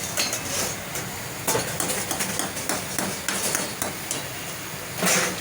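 Irregular knocks and clanks of metal cooking utensils, with a louder, longer clatter near the end.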